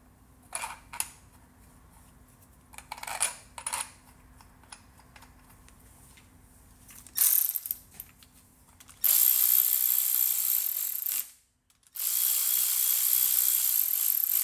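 A few light clicks of parts and tools being handled, then a cordless electric ratchet runs in two steady spells of about two seconds each, with a short pause between them. It is driving the bolts that fasten a seal-installer tool to the engine's crank nose.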